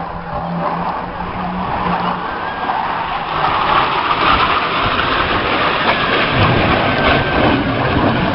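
Jet aircraft flying low past, its engine rushing noise growing louder over the first few seconds as it approaches and then holding steady.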